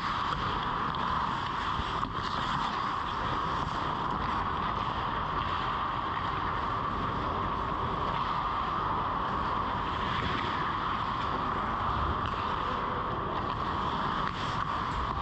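Steady rushing noise of an indoor ice rink during play, picked up by a GoPro mounted in the goal net, with a few faint knocks of sticks or skates on the ice.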